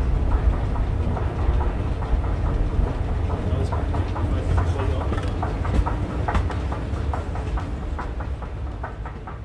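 Experimental music played on the body of a piano: a deep rumble under fast, irregular ticks and taps, slowly fading toward the end.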